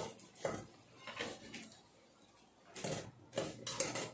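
Metal spatula knocking and scraping against a frying pan and a metal draining pot as fried risoles are lifted out: several separate clinks with quiet gaps between, a cluster of them near the end.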